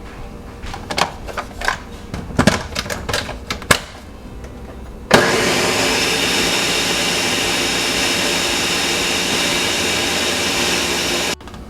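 A few knocks and clicks, then about five seconds in an electric blender starts abruptly and runs at a steady speed, blending a kale, banana, milk and yogurt smoothie, and cuts off suddenly near the end.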